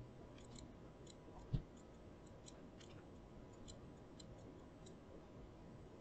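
Faint, irregular computer mouse clicks, with one soft low thump about a second and a half in.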